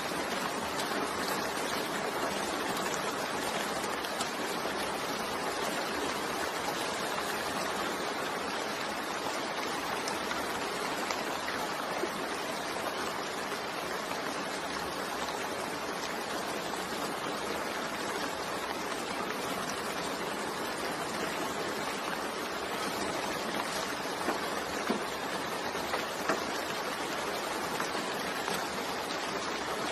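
Steady, heavy rain falling, an even hiss with a few louder drops standing out near the end.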